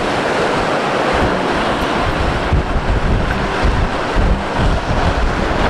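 Strong wind buffeting the microphone in irregular low gusts over the steady rush of ocean surf breaking on a rocky shore.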